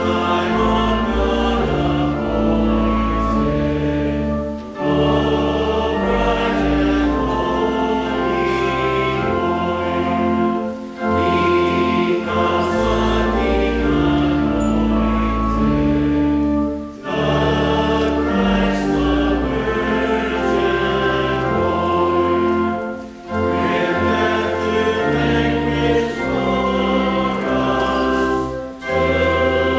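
A congregation singing a hymn with organ accompaniment: held chords over a deep bass, sung line by line with a short breath between phrases about every six seconds.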